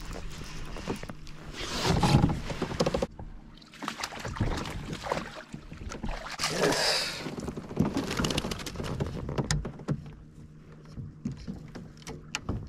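Water splashing and gear knocking against a kayak hull as a hooked bass is brought alongside and scooped into a landing net, with scattered clicks and bumps of the rod and net being handled. There are two louder splashing rushes, one about two seconds in and one as the net goes into the water.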